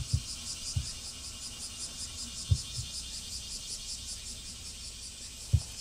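Cicadas shrilling in a steady, quickly pulsing high chorus. A few brief low thumps sound near the start, about halfway and near the end.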